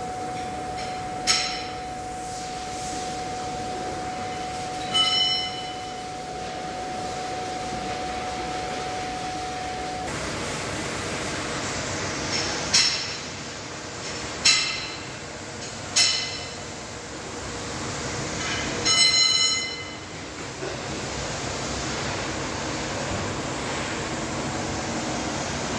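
Six sharp metallic clinks that ring briefly, spaced a few seconds apart, as hand tools knock against metal while the car's tailgate is being worked on. A steady high tone sounds under the first two and stops suddenly about ten seconds in.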